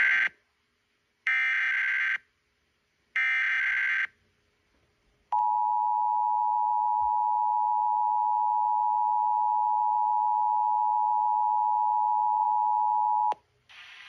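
Emergency Alert System SAME header: three short bursts of warbling digital data tones, then the EAS two-tone attention signal held steady for about eight seconds before cutting off, heard from a portable HD radio's speaker during a Required Monthly Test.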